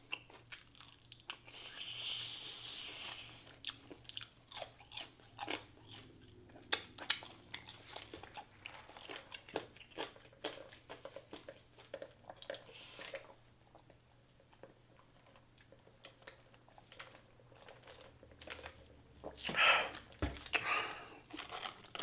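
Close-miked chewing and biting into crunchy fried food, with many crisp crunches through the first half and softer, sparser chewing after. A louder burst of sound comes near the end.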